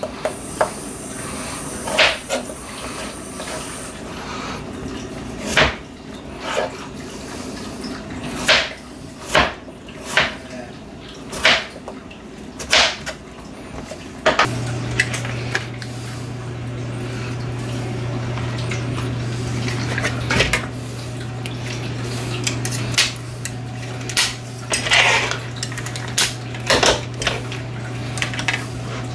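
Knife chopping raw potatoes on a plastic cutting board: sharp knocks of the blade hitting the board, roughly one a second. A steady low hum comes in about halfway through.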